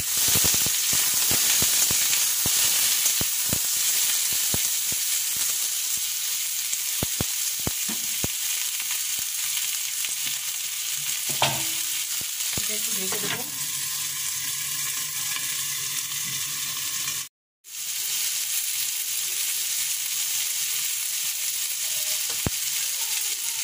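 Ridge gourd, potato and green chillies sizzling in hot oil in a kadai, with a steady hiss. Over the first several seconds they are stirred, with quick clicks and scrapes against the pan. The sound cuts out for a moment about three-quarters of the way through.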